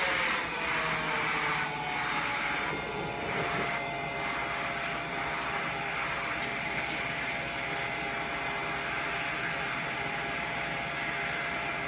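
Electric heat gun blowing steadily, its fan giving an even rush of air with a faint steady whine. It is shrinking adhesive-lined heat-shrink tubing onto a charging cable.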